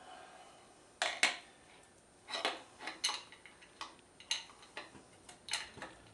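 Steel oil pump pickup tube and screen clinking and tapping against the oil pump as it is fitted to the pump with its washer: a string of about ten short, sharp metal clicks, starting about a second in.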